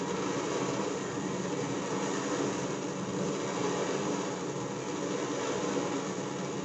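Kerosene-type burner stove running on used cooking oil, giving a steady rushing hiss while it is still warming up with a yellow flame.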